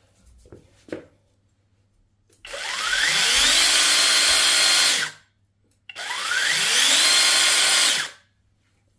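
Cordless brushless electric chainsaw run twice with no load. Each time the motor spins up with a rising whine, holds a steady high speed for a couple of seconds, then cuts off. A few light clicks come before the first run.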